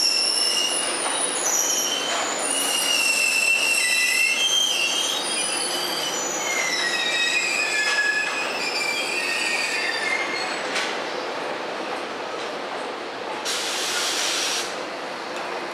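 An EH500 electric freight locomotive accelerating past with its train of Koki container wagons. Wheels squeal in shifting high pitches over the first ten seconds or so as the steady rolling noise of the wagons goes on, with a short hiss near the end.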